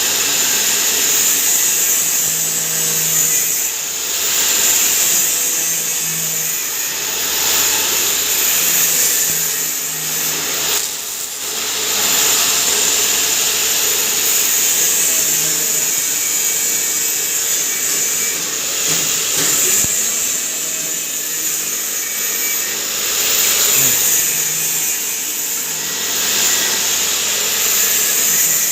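Pulverizer (spice grinding mill) running continuously, a loud steady rushing whine with small swells in level.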